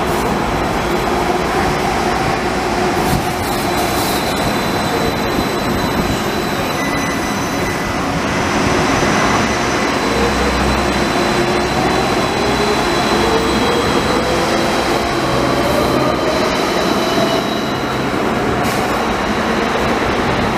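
Danhai light rail tram running on its track, with a steady rush of wheel and running noise and an electric motor whine that falls in pitch over the first half and rises again in the second half.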